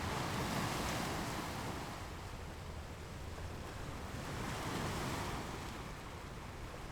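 Sea waves breaking on a rocky beach: two surges of surf, the first at the start and another about four seconds later, each swelling and then washing away.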